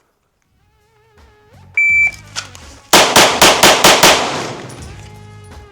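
A shot timer gives one short beep. About 1.2 seconds later a pistol fires six rapid shots in about a second, in a Bill Drill from the holster timed at 2.27 seconds with a first shot at 1.17. Background music plays underneath.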